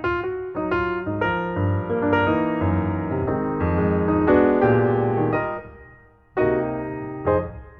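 Background music: piano or electric piano playing a melody of struck notes, with a brief pause about six seconds in.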